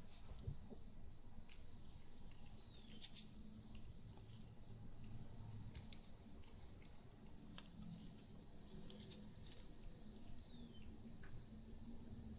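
Quiet room tone with a faint steady high-pitched drone and a few light clicks, the sharpest about three seconds in and another about six seconds in.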